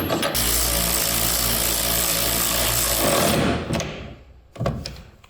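Handheld power tool running hard for about three seconds, then winding down, driving a tail light bolt back in; a couple of short knocks follow near the end.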